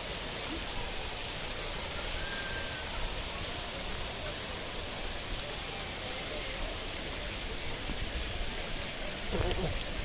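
Steady rush of flowing river water, with faint distant voices over it and a brief louder rumble near the end.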